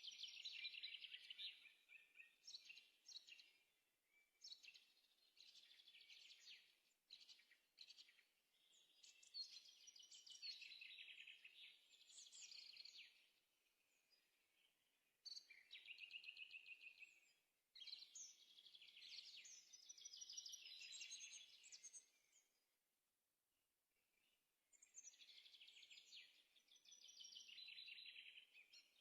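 Faint bird song: phrases of rapid, high trills and chirps, each a few seconds long, with short pauses between them.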